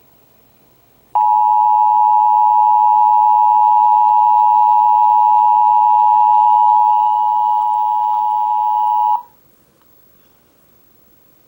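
Midland NOAA weather radio sounding its alert tone: one long, steady, piercing tone near 1 kHz. It starts about a second in, lasts about eight seconds and cuts off suddenly, leaving only faint hiss. It is the attention alarm that announces an emergency alert broadcast.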